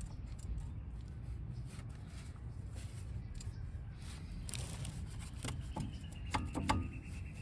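Hand work on a car's front suspension during a strut replacement: scattered clicks, then a cluster of knocks of metal parts and tools, loudest about six and a half seconds in, over a steady low rumble.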